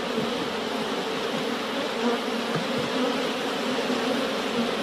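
Many honeybees buzzing together, a steady, dense hum of wings with many wavering tones.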